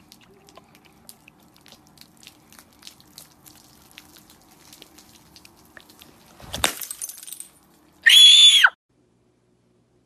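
Faint clicks and handling noise, then a sudden loud crash about six and a half seconds in, followed a second later by a short, very loud, high-pitched scream that falls in pitch at its end.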